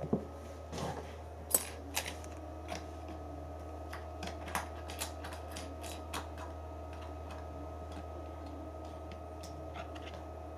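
Scattered light clicks and taps, about eight, most in the first six seconds, over a steady low hum.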